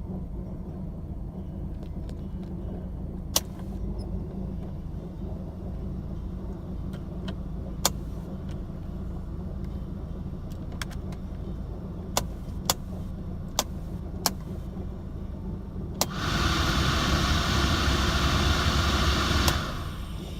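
1985 Mercedes-Benz 190E engine idling roughly: a steady low hum with irregular sharp clicks now and then. Near the end a louder rushing noise comes in for about three and a half seconds and cuts off suddenly.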